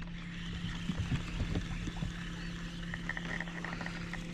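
Spinning fishing reels being cranked as fish are reeled in: light, irregular clicks and ticks over a steady low hum.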